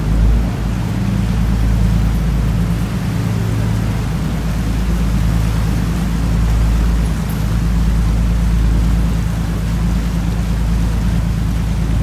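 A small sightseeing boat's engine running steadily, a low drone under the hiss of water rushing past the hull.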